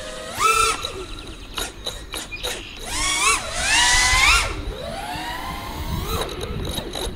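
Brushless motors and props of a 6S FPV freestyle quadcopter (Ethix Stout v3 motors) whining, the pitch leaping up in sharp throttle punches and sliding back down several times. Short bursts of rushing air noise come in between.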